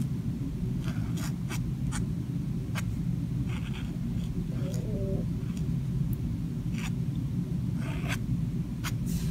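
Ink pen strokes scratching on sketchbook paper: short, separate scratches about once a second, over a steady low hum.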